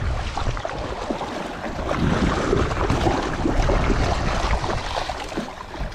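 River water splashing and churning around a landing net as a trout is brought in, with wind buffeting the microphone.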